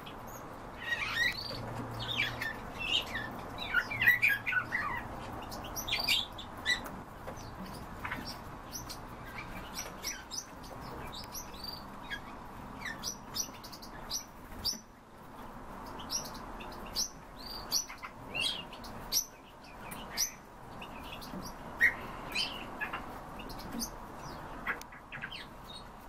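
Many small cage birds in an aviary chirping, short overlapping calls coming thick and fast in the first few seconds, then scattered through the rest, over a faint steady hum.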